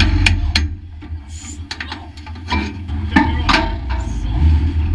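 Scattered clicks, knocks and rubbing close to the microphone inside a stock car's cockpit, over a low steady hum from the car's 1-litre engine idling.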